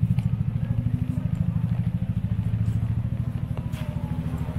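Low, fast, even throbbing of an engine or motor running steadily close by, slowly fading.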